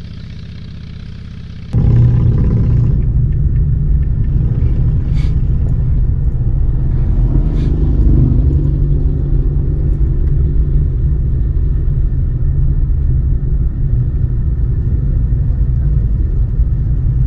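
Low, steady vehicle rumble of a slow-moving pack of motorcycles, heard from a following vehicle. It jumps much louder a little under two seconds in and stays heavy after that.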